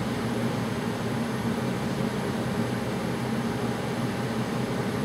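Room heater running: a steady rush of noise with a low hum.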